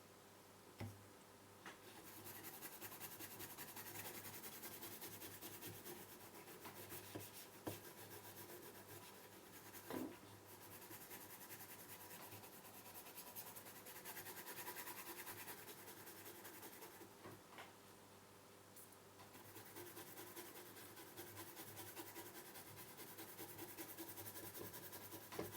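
Faint rubbing and scrubbing on a TV circuit board as it is cleaned with solvent, with a few light clicks and short lulls between strokes.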